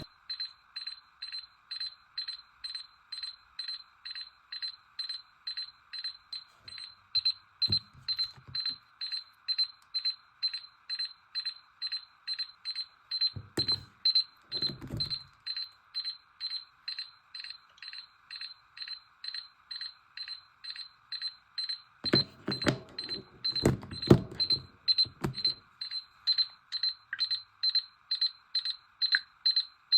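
Electronic alarm beeping, one high pitch repeated in a fast steady pattern of about two and a half beeps a second. A few short low rumbling thuds come in partway through, the longest cluster about two-thirds of the way in.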